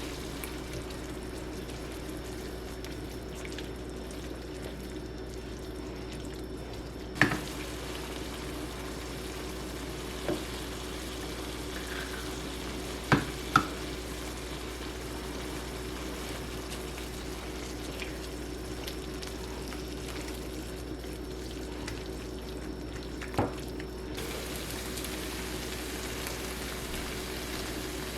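Food sizzling in a frying pan, a steady hiss over a low hum, with a few sharp clinks and knocks of a utensil against the pan.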